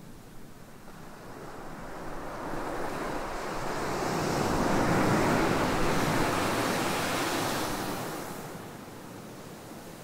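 A single ocean wave breaking on a sandy beach: the surf swells over a few seconds, peaks near the middle, then washes up the sand and fades away about eight seconds in.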